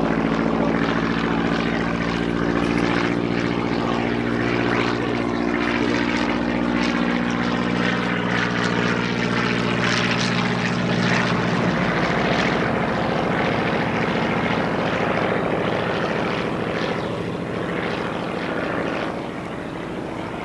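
Piston-engined WWII propeller fighter running, with a steady engine tone for about twelve seconds. The tone then breaks up and the sound fades toward the end.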